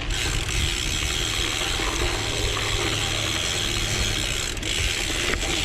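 DT Swiss 240 EXP rear hub's ratchet freewheel buzzing steadily as the gravel bike coasts, over a low rumble.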